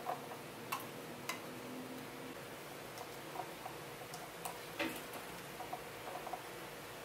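Hands working marinade into raw chicken legs in a ceramic bowl: scattered small wet ticks and squelches, with a few sharper clicks against the bowl, the loudest a little under five seconds in. A faint steady hum lies underneath.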